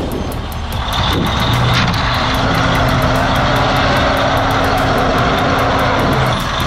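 Vehicle engines working hard under load as a semi truck tows a stuck pickup out of deep snow on a strap. The sound swells about a second in, and a steady whine runs through the middle.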